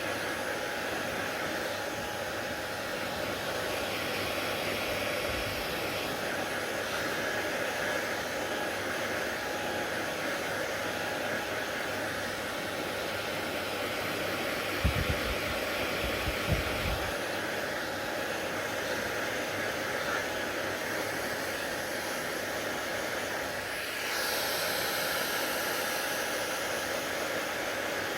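Hair dryer running with a steady blowing hiss. A few low thumps come around the middle, and the sound grows louder and hissier near the end.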